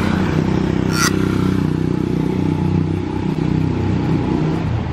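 A motor vehicle engine, in the manner of a motorcycle, running steadily close by.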